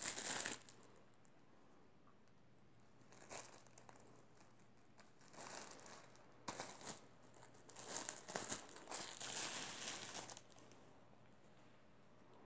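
Thin plastic bread bags crinkling in several bursts as a cat paws and noses at the wrapped bagel and buns, the longest bout running about two and a half seconds near the end.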